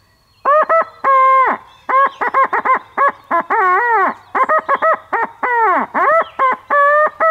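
Mouth-blown owl hooter call giving a fast run of loud hooting notes, many of them bending down in pitch at the end, in imitation of an owl.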